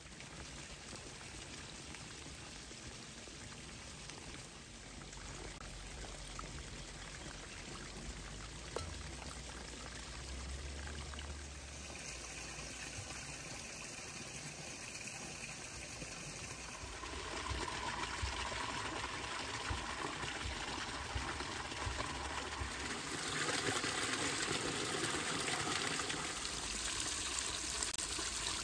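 Spring water pouring in a steady stream from the lip of a stone trough and splashing onto rocks and a shallow pool below. The splashing grows louder a little past halfway and again near the end.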